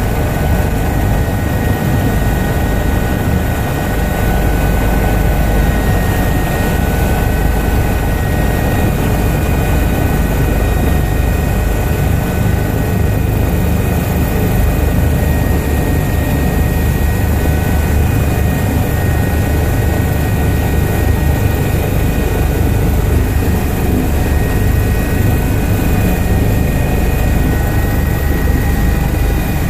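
Helicopter cabin noise during descent: a steady deep rotor and engine drone with a thin, steady high whine over it, heard from inside the cabin.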